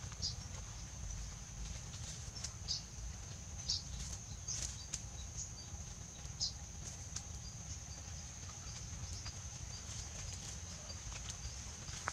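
Forest ambience: a steady high-pitched insect drone, with scattered short chirps and clicks every second or so.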